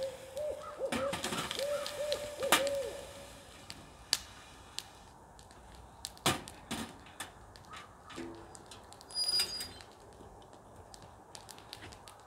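Owls hooting: a quick run of hoots in the first three seconds, a pair calling to each other. Scattered sharp knocks and a brief metallic clink about nine seconds in, from metal gear being handled.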